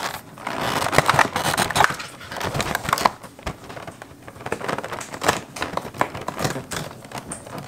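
A small advent calendar box and its packaging being opened by hand: irregular rustling with sharp clicks and taps.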